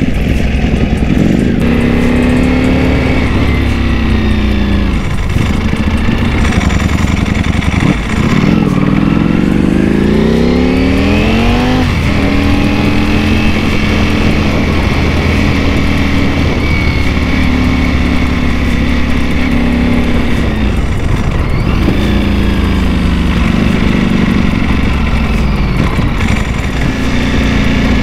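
Ducati Panigale V4S's V4 engine, fitted with a dry clutch, heard from the rider's seat while riding. Its pitch climbs and falls several times as the throttle is opened and closed. The longest climb is about eight to twelve seconds in and ends in a sudden drop at a gear change, after which the engine holds a steady pitch while cruising before falling and climbing again near the end.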